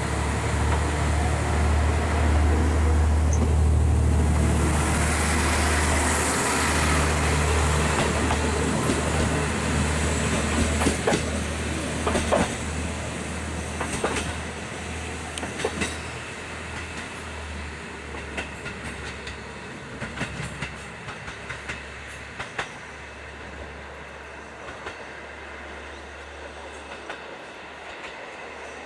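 JR Hokkaido KiHa 54 diesel railcar pulling away: its diesel engine drones loudest in the first few seconds, then the wheels click over the rail joints in a string of sharp clacks as it draws away, and the sound fades.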